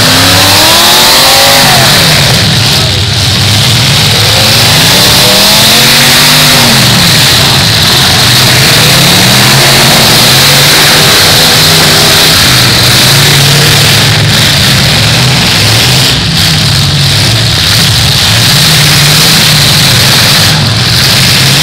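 Demolition derby cars' engines revving hard and loud, their pitch rising and falling as the cars push at one another.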